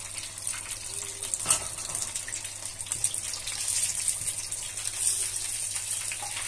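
Hot oil sizzling and crackling steadily around breaded chicken pieces deep-frying in a pot, with one louder crackle about a second and a half in.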